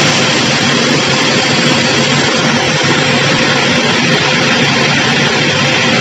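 Pressure washer jet hissing steadily as it sprays water onto an air conditioner's indoor coil, with the even hum of the washer's motor and pump underneath.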